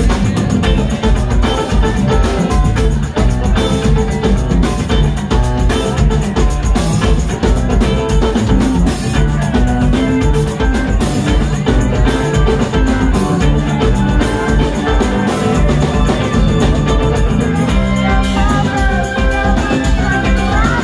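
A funk band playing live instrumental music: electric guitar, electric bass, keyboard and a drum kit keeping a steady beat.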